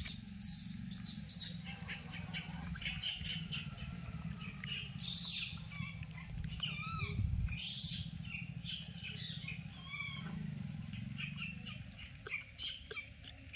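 Short, high-pitched squeaking calls with a quickly wavering pitch, several times, among scattered clicks over a steady low rumble.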